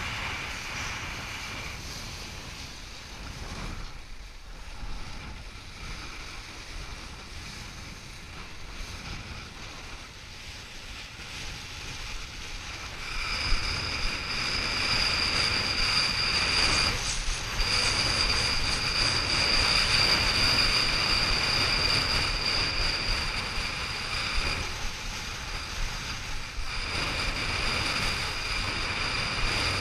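Strong wind, over 25 knots, buffeting an action camera's microphone while a kiteboard skims over choppy sea, with water rushing and splashing. About halfway through, the noise gets louder and a steady high whistle comes in, cutting out briefly a couple of times.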